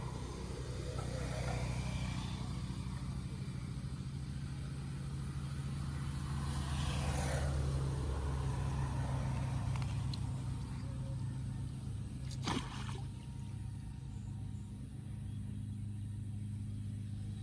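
An engine running steadily with a low hum. Its sound swells in the middle and falls away, like a motor vehicle passing. There is one sharp click about two-thirds of the way in.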